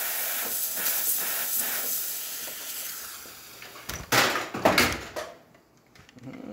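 Rancilio Epoca espresso machine's steam wand hissing steadily, fading away over the first three seconds or so. About four seconds in comes a cluster of loud knocks and clatter as the machine's controls are handled.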